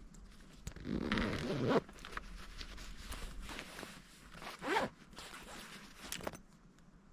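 A zipper pulled open in two long strokes, about a second in and again near five seconds, with handling clicks and rustling between.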